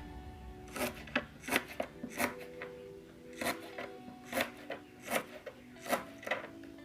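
Knife slicing lemongrass stalks thinly: a series of short, sharp cuts, irregularly spaced about every half second to second. Soft background music underneath.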